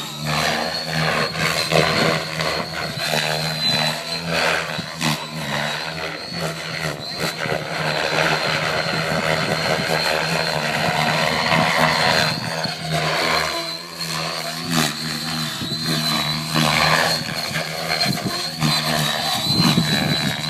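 Electric RC helicopter flying, with a steady high-pitched whine and a low rotor buzz that rise and fall somewhat in level as it moves about.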